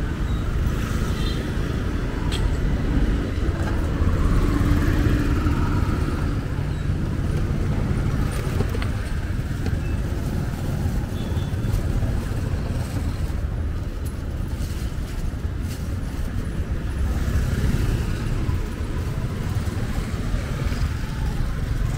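Steady outdoor street ambience: a low rumble of road traffic and motorbikes, with faint voices in the background.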